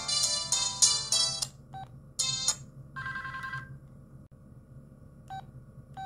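Audiovox CDM-8940 flip phone's speaker playing the last notes of a polyphonic ringtone melody, which stops about a second and a half in. Then come a few short electronic beeps and tones from the phone's menu, a brighter chime and a two-note tone among them, with quiet gaps between.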